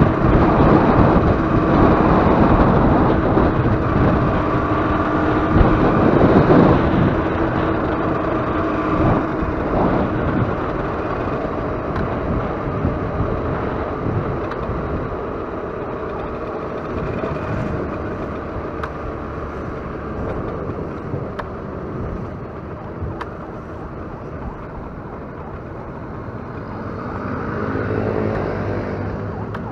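Motorcycle engine running under way, heard from the rider's own bike with wind and road noise and traffic around it; a steady engine note for the first ten seconds or so, then the sound eases off as the bike slows, with a brief swell near the end.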